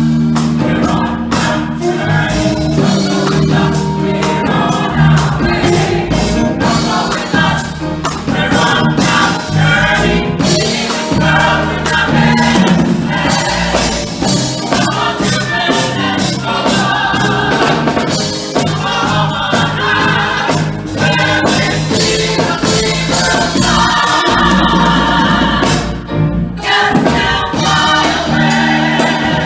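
A gospel choir singing with a live band of drums, bass and keyboard, full and steady.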